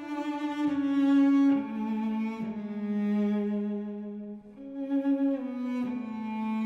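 Background music: a bowed cello playing a slow melody of long held notes.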